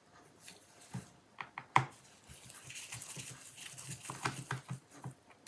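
Gloved hands handling a laptop's metal bottom panel: a few sharp clicks and taps, the loudest about two seconds in, and a soft rubbing from about two and a half to four and a half seconds in.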